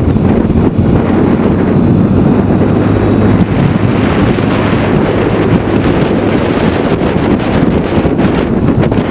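Steady wind buffeting on the microphone of a moving motor scooter, with the scooter's low engine hum underneath, cruising at an even speed.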